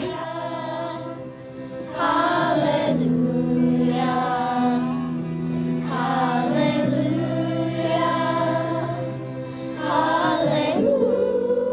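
Children's choir singing a holiday carol in phrases of a few seconds each, over steady held accompaniment chords.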